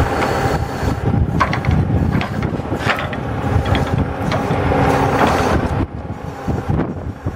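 Log truck's hydraulic knuckleboom loader running as the boom slews and the grapple works, with the truck's diesel engine running steadily to drive the pump. A few sharp metal clicks and clanks from the loader's joints and grapple.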